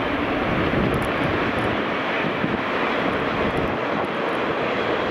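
Diesel-hauled freight train of open wagons passing at a distance: a steady, even drone of the locomotive's engine and the rolling wagons.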